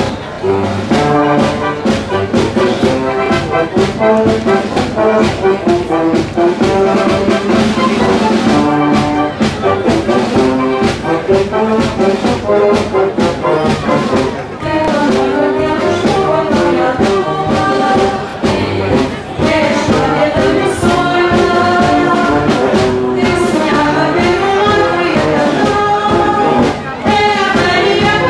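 Brass band music with a steady, even beat: a Portuguese marcha popular tune, trumpets and trombones carrying the melody.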